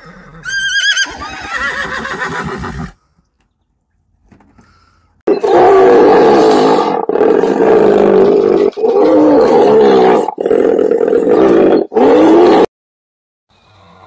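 A horse whinnies with a falling call about half a second in, with more horse sound to about three seconds in. After a short pause a hippopotamus calls loudly, a low, deep call in five long stretches with brief gaps between them.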